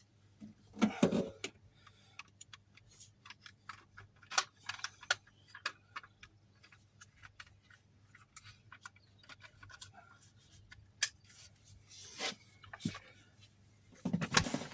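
Irregular small clicks, taps and knocks of hard items being handled, with a couple of longer rustles, one about a second in and one near the end.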